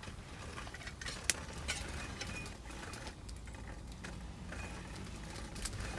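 Wood campfire crackling: irregular sharp pops and snaps over a low steady rumble.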